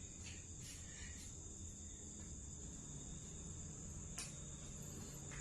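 Crickets trilling steadily in a high, continuous tone, with a few faint light rustles near the start and one short click about four seconds in.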